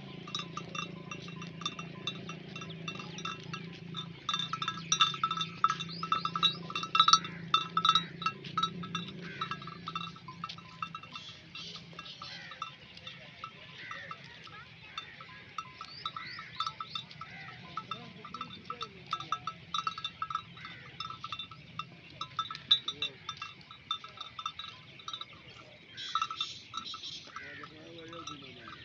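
Many neck bells on a grazing flock of dumba sheep clinking and ringing continuously and irregularly as the animals move and feed, with a few sheep bleats among them.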